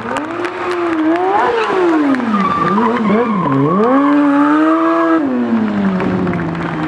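Stunt motorcycle engine revved hard and repeatedly: the pitch climbs, falls and wobbles, climbs again and holds high for about a second, then drops back about five seconds in.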